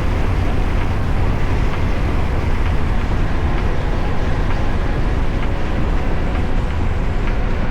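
Yamaha FJR1300 inline-four motorcycle running steadily at road speed: a constant low engine and road rumble under a haze of wind noise on the microphone.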